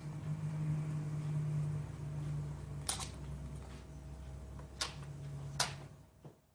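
Small screws being worked out of a laptop's aluminium bottom case with a pentalobe screwdriver, giving three sharp metallic clicks over a low steady hum.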